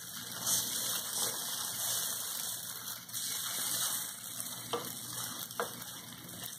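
Egg-and-tapioca crepioca batter sizzling steadily in a buttered nonstick frying pan over high heat while a plastic spoon spreads it, with two light knocks near the end.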